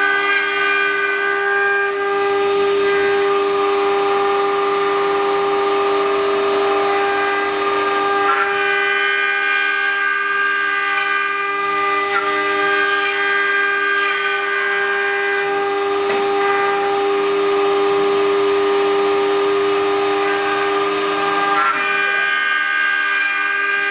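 Multi-spindle 4-axis CNC wood router running, its row of spindles making a steady, high whine of several pitches at once while the bits carve wooden chair legs turning on rotary axes, over a noisy rasp of wood being cut.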